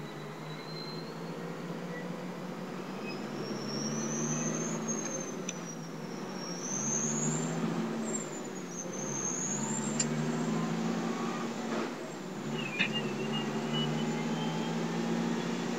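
Kenworth T600's Cummins 350 diesel engine running under way, its drone swelling and easing every few seconds, with a high turbo whistle that climbs during the first few seconds and then wavers up and down with the throttle. A couple of sharp clicks sound near the end.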